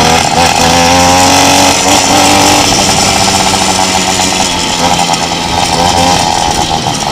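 Motorcycle engine running under way, its pitch rising and falling as the throttle is worked.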